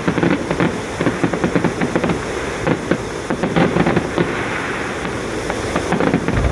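Fireworks display going off: a rapid, unbroken run of bangs and crackles.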